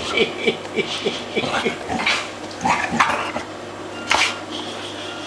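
Hungarian wirehaired vizsla and Slovakian rough-haired pointer dogs making play noises as they wrestle: a quick run of short vocal sounds, several a second, for the first second and a half, then a few separate sharper, noisier sounds.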